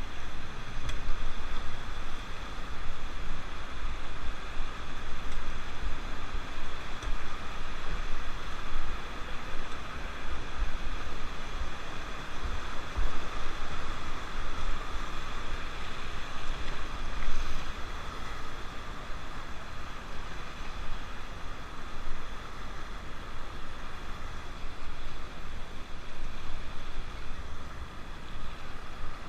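Rushing river water with wind buffeting the microphone: a steady, uneven noisy rush.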